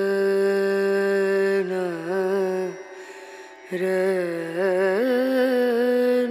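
Background music: a voice singing long held notes with wavering ornamental turns in an Indian classical or devotional style. It breaks off for about a second near the middle, then picks up again on a higher note.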